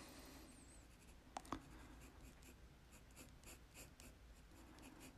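Faint scratching of a graphite pencil drawing on paper: a run of short, evenly repeated strokes about three a second, with two light ticks about a second and a half in.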